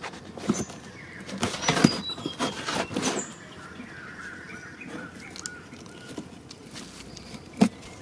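Knife blade cutting and scraping through a corrugated cardboard box: a run of scratchy clicks and short squeaks, then a longer steady scraping drag, and one sharp knock near the end.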